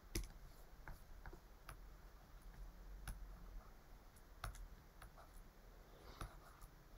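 Faint, irregular clicks and taps of a stylus on a tablet during handwriting, over near-silent room tone.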